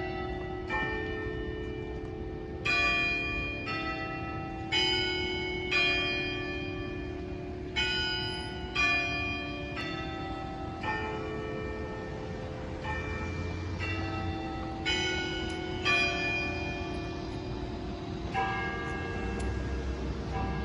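Several bells of different pitches ringing in turn, about one stroke a second, each note ringing on under the next.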